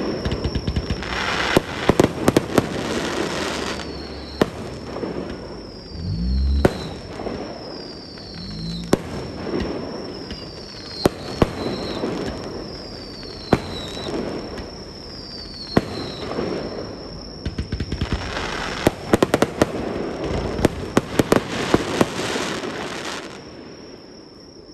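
Fireworks display: sharp bangs of shells bursting, with two stretches of dense crackling, one near the start and one toward the end, and short falling whistles every couple of seconds. The display noise dies down just before the end.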